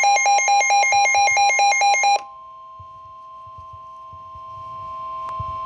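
Emergency weather alert tones for a flash flood warning: a loud, rapid electronic beeping alarm, about eight beeps a second, for about two seconds. It gives way to a quieter, steady long alert tone near 1 kHz, the kind of warning alarm tone that NOAA Weather Radio sends before a warning.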